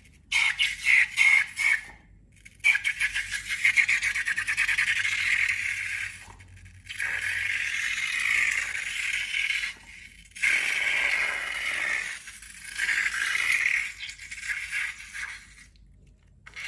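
Crackly rattling and scraping from slime being worked by hand, coming in about five stretches of a few seconds each with short pauses between.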